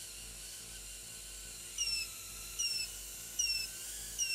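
Happymodel Mobula7 micro whoop drone's brushless motors spinning up and lifting it into a test hover: a faint high whine and hiss, with short falling chirps, about one a second, from about two seconds in.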